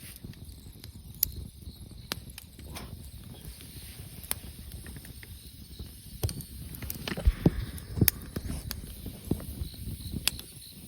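Wood campfire burning with scattered sharp crackles and pops over a low rumble, the pops coming thicker and louder about two-thirds of the way through.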